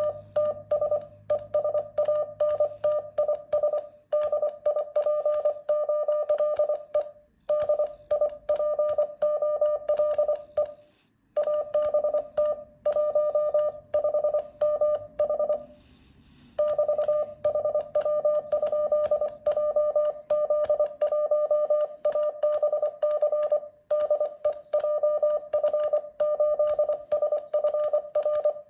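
Morse code sent by hand on a paddle key: a single mid-pitched beep keyed rapidly into dots and dashes, with a sharp click on each element. It breaks briefly between words, with a longer pause about 16 seconds in. It is spelling out one side of a typical amateur radio contact, giving power and antenna height and ending with the call signs and 'K' to hand over.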